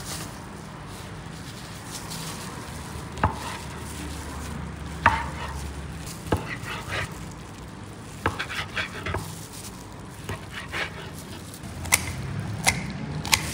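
Long knife cutting through roast meat on a wooden cutting board: sharp knocks of the blade striking the board every second or two. Near the end, kitchen shears cut into a roasted chicken.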